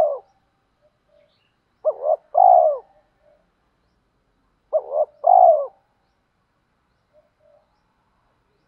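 Spotted dove cooing: two full calls about three seconds apart, each two short notes followed by a longer falling note. The tail of a previous call ends right at the start.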